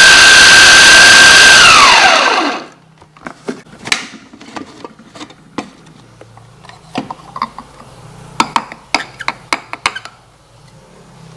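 Small electric food chopper running at full speed, blending garlic, chilies and shallots, with a steady high whine. About a second and a half in it is switched off and the whine falls as the blades spin down. Scattered light clicks and knocks follow.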